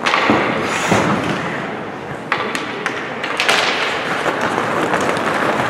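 Ice hockey sticks clicking and tapping on the ice around a centre-ice faceoff, with a few dull thumps, over the rink's steady noise.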